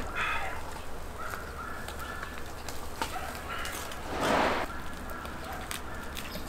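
Birds calling in the background, short calls repeating, over the chewing and faint smacking of someone eating roasted lamb ribs off the bone. A short, loud rush of breathy noise comes about four seconds in.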